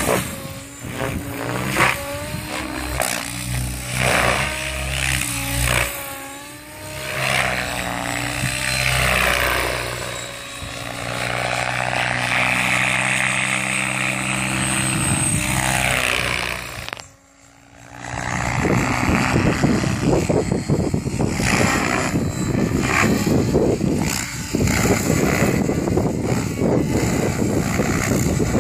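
Compass 700 radio-controlled helicopter flying aerobatics, its rotor and drivetrain whine rising and falling in pitch as it manoeuvres. The sound drops away for about a second two-thirds of the way through, then returns as a rougher, choppier rotor noise.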